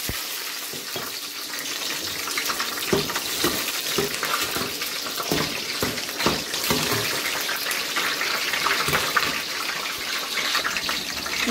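Green chillies frying in hot oil in a stainless steel kadhai: a steady sizzle with scattered pops and crackles.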